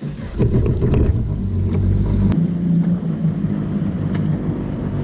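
Yamaha FX Cruiser HO WaveRunner's engine running steadily on the water, a low engine tone with a strong low hum.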